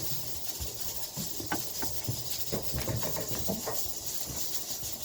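Light clicks, taps and scrapes of metal and plastic parts as a garbage disposal's sink mounting assembly is refitted by hand, over a steady hiss.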